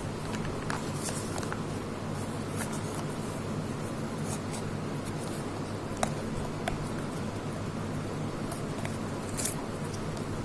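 Small retail packaging for a USB cable being opened and handled by hand: brief scratchy rustles and scrapes of cardboard and plastic with a few sharp clicks, the sharpest about six seconds in, over a steady low hum.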